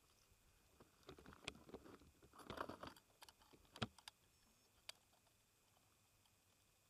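Faint handling noises as a landed largemouth bass is unhooked by hand: scattered small clicks and rustles between about one and five seconds in, the sharpest click near four seconds.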